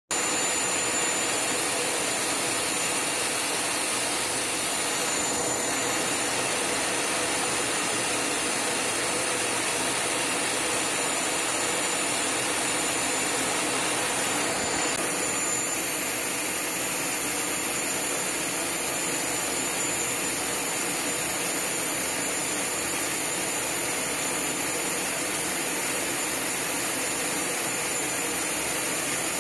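Steady jet engine and airflow noise inside a Su-27 fighter's cockpit, with a faint high whine over it.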